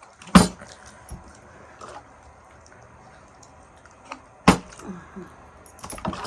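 Two sharp knocks of a hard object striking a surface, one near the start and one about four seconds later, with light clicks and rustling between.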